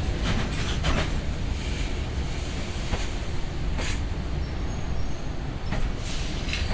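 Container freight train rolling slowly along the platform as it pulls in to stop: a steady low rumble with scattered sharp clicks and knocks from the wheels and cars.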